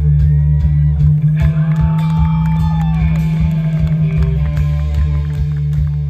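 Live rock band playing loud through a festival PA, heard from within the crowd: a heavy, sustained electric guitar and bass chord over steady drum hits.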